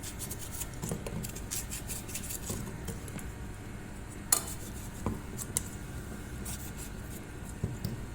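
Kitchen utensils clinking and scraping against pots and dishes, a run of small clicks with a few sharper knocks about halfway through and near the end.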